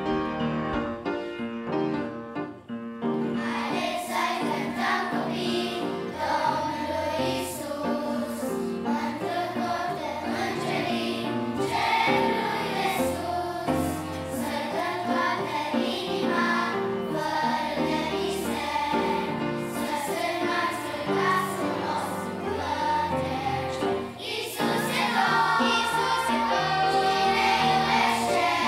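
Children's choir singing a Romanian Christian children's song with instrumental accompaniment. The voices come in about three seconds in, after a short piano introduction.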